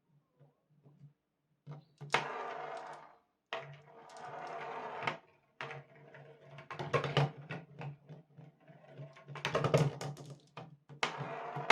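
Glass marbles running down a cardboard marble run: faint ticks at first, then stretches of rolling rattle, each a second or more long, broken by sharp clacks as the marbles drop and hit the track.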